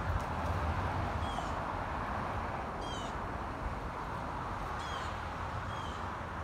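A bird giving four short, high, falling calls, spaced a second or two apart, over steady outdoor background noise with a low rumble.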